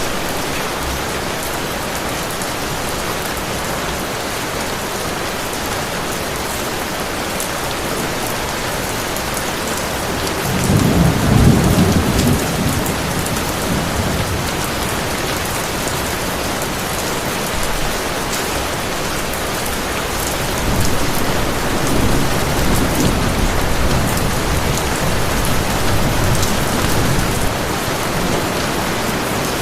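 Heavy rain falling steadily, with a rumble of thunder about ten seconds in and a longer, softer rumble from about twenty seconds until near the end.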